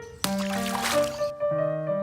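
Keyboard music with sustained piano-like notes. A short rushing noise cuts in about a quarter second in and fades after about a second.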